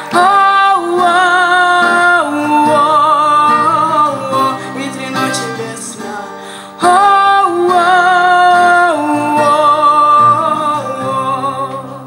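A young woman's voice singing long held notes with vibrato over a strummed acoustic guitar, in two phrases, the second starting about seven seconds in; the voice fades out near the end, leaving the guitar.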